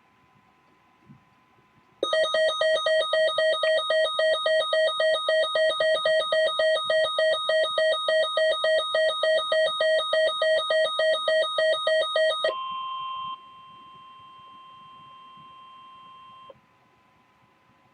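Emergency alert tones signalling a severe thunderstorm warning. About two seconds in, a loud electronic alarm starts, pulsing about four times a second for some ten seconds. It then gives way to a quieter, steady single tone, the warning alarm tone, which stops about four seconds later.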